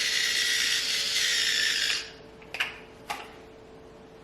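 Electric pepper grinder whirring as it grinds black pepper, stopping about two seconds in, followed by two light knocks.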